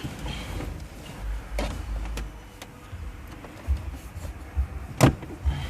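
Scattered clicks and knocks of hands handling plastic car interior trim and tucking a wire behind it, with a low rumble underneath; the sharpest knock comes near the end.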